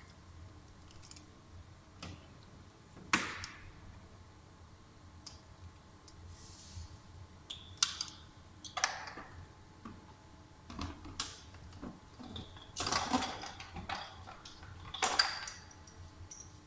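Scattered clicks and knocks of hands and tools working on a car's plastic rear bumper and its fixings. A handful are louder, the loudest about three seconds in, around eight seconds in and near the end, some with a short scrape after them.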